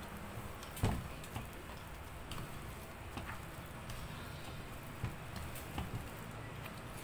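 Hand kneading soft butter-and-flour biscuit dough in a stainless steel bowl: faint scattered taps and knocks of hand and dough against the steel, the loudest about a second in.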